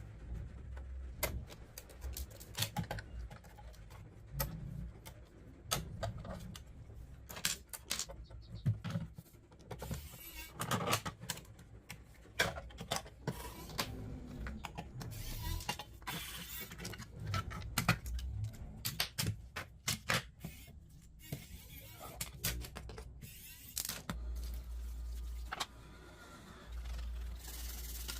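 Irregular sharp clicks, taps and clinks of small hard parts and tools being handled. A low steady hum comes in near the end.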